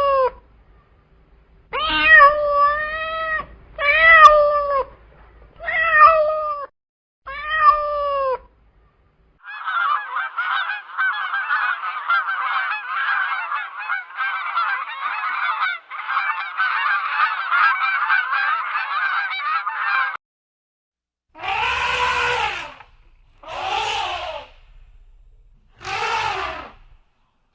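Farm animals calling: five separate drawn-out, pitched cries in the first eight seconds, then about ten seconds of a flock's dense, continuous chatter. Near the end come three louder, rougher calls.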